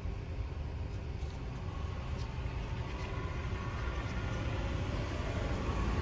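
Steady low rumble of outdoor background noise with no distinct events.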